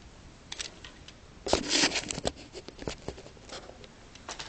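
Plastic Lego pieces being handled: scattered clicks, with a louder clattering rattle about a second and a half in and a few more clicks near the end.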